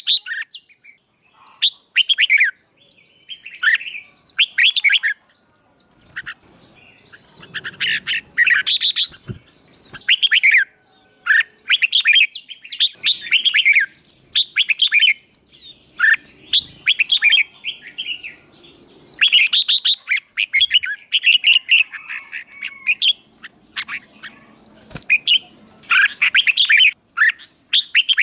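Songbird giving a fighting song: loud, fast bursts of chirps and whistled glides, repeated phrase after phrase with short pauses between.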